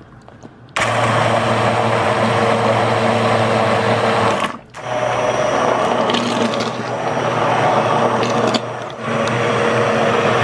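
Immersion hand blender running in a pot of hot cooked zucchini and potato soup, puréeing it smooth: a steady motor hum with churning liquid. It switches on about a second in and cuts out briefly twice.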